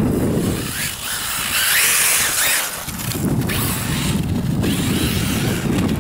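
Brushless-powered 1/8 RC buggy with a Turnigy XK4074-2000KV motor driving on sand, its whine rising and falling with the throttle over a hiss of spinning tyres, loudest in the first few seconds. Wind buffets the microphone as a low rumble, heaviest in the second half.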